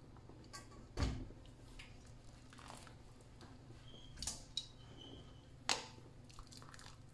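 A few sharp knocks and clatters of things being handled, the loudest about a second in, over a low steady hum.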